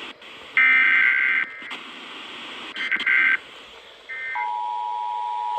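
Emergency Alert System encoder tones: three bursts of rapid two-tone digital warbling, the first about a second long and the loudest, the others shorter. About four seconds in, the steady two-tone EAS attention signal starts up.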